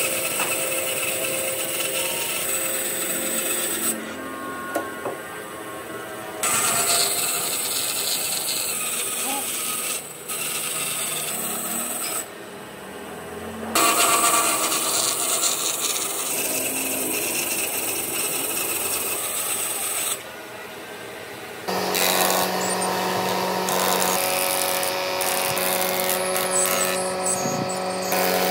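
Band saw blade cutting through logs and a block of wood, in a series of short clips that change abruptly. About three-quarters of the way in it gives way to an old planing machine running steadily with a low hum as a board is fed through.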